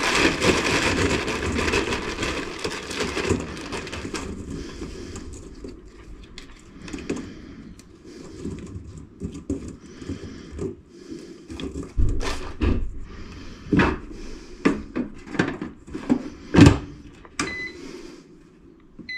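Preparing chips for an air fryer: a loud rustle at first that fades over a few seconds, then scattered knocks and clatter of the basket and fryer being handled, and a short electronic beep from the air fryer's controls near the end.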